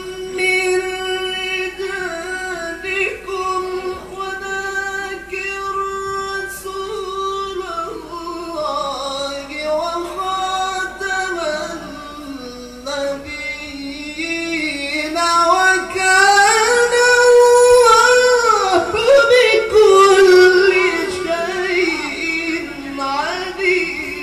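A man's voice in melodic Quran recitation (tilawah), heard through a microphone: one long held note for about eight seconds, then ornamented runs that dip lower and climb to a louder, higher stretch past the middle before falling back.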